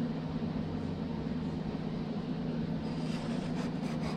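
Steady low mechanical hum of running workshop equipment, with faint scratchy handling sounds near the end.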